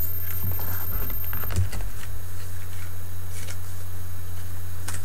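Steady low electrical hum with scattered light rustles and clicks of trading cards being handled and set aside.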